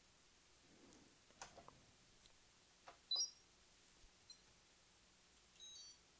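Faint clicks from test clips being handled on a capacitor's leads, then short high electronic beeps from a Peak Atlas ESR capacitor meter running its test: one about three seconds in and a quick chirping run of beeps near the end.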